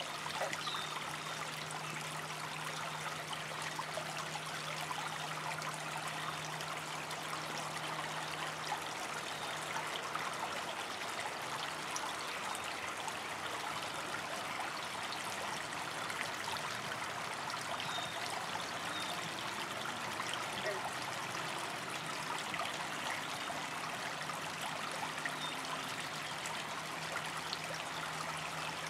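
Shallow creek water trickling and babbling over rocks, a steady even rush with no pauses.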